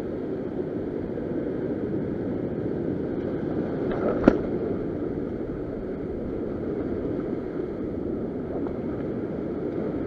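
Ocean surf breaking and washing over a rock shelf, a steady rushing noise, with a single sharp knock a little over four seconds in.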